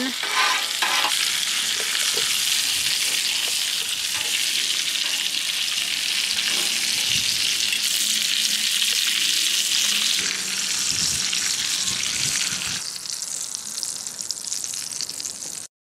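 Corn on the cob sizzling steadily on a hot, greased Blackstone flat-top griddle. The sizzle thins about three-quarters of the way through and cuts off abruptly just before the end.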